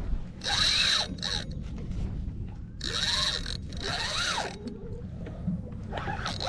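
Fishing reel drag paying out line in four short buzzing runs as a hooked fish pulls against it, over a steady low rumble.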